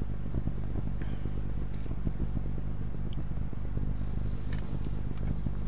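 A steady low hum in the background of the recording, with a few faint scattered clicks.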